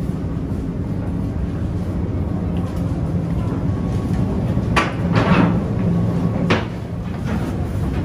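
Ferry engine running with a steady low rumble and hum. A few short knocks or clatters come about two thirds of the way through.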